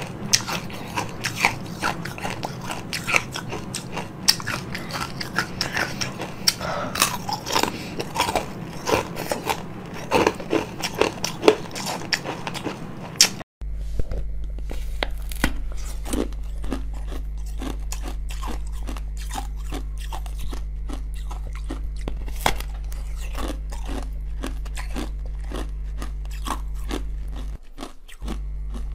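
Close-miked crunching and biting of frozen food: dense, sharp cracks of teeth through chunks of ice with frozen fruit inside. About halfway through, after a brief cut-out, sparser bites into a frozen red slab follow over a steady low electrical hum.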